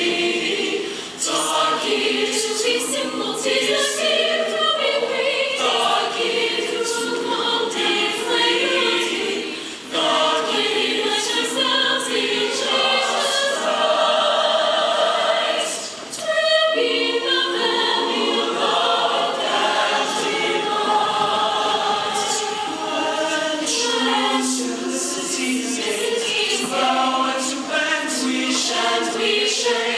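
High school show choir singing in harmony, many voices together, with brief breaks between phrases.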